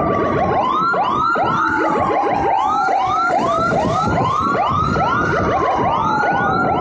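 Two emergency sirens sounding at once. One is a slow wail that rises quickly and sinks slowly, about every three seconds. Over it is a rapid chirping siren that sweeps up and down several times a second.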